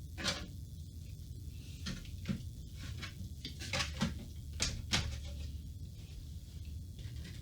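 Computer case parts being handled, giving a run of short knocks and clicks, bunched in the middle, over a steady low hum.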